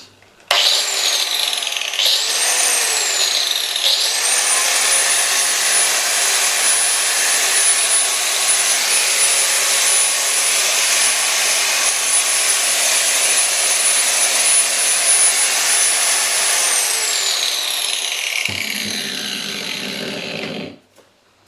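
Interskol UShM-125/900 angle grinder with a 125 mm disc run with no load: the motor starts, whines up to speed unevenly over the first few seconds, then holds a steady high whine. It is switched off about 17 seconds in, and the whine falls as it winds down to a stop.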